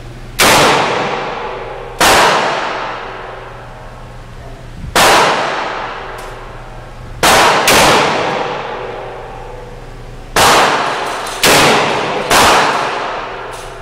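Gunshots from a .44 Magnum revolver on an indoor range, each report followed by a long echo off the walls. Eight shots at uneven spacing, two of them only half a second apart.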